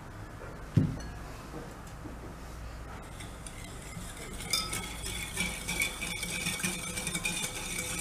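Wire whisk beating milk and sugar in a glass bowl, its wires clinking rapidly against the glass from about halfway through. A single knock about a second in.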